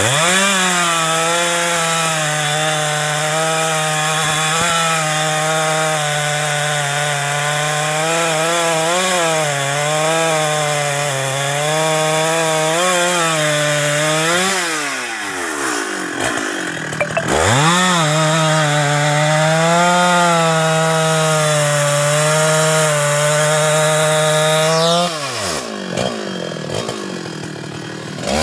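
Husqvarna 394XP two-stroke chainsaw running at full throttle as it cuts through a thick felled klumpit trunk, its pitch wavering under load. The revs drop away about halfway through and again near the end, each time rising back to full speed.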